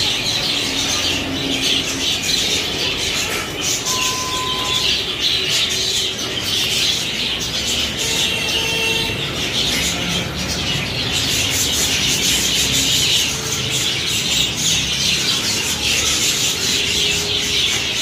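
A large flock of budgerigars chattering at once, a steady dense mass of high chirps and warbles.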